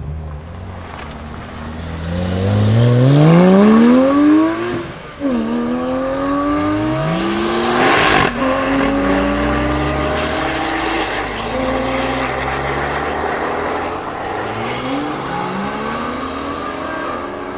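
A supercar engine accelerating hard, revving up and then dropping in pitch at an upshift about five seconds in. It pulls through the next gear, and a sharp crack comes at the second shift. It then runs on at steadier revs, with another rev rising near the end.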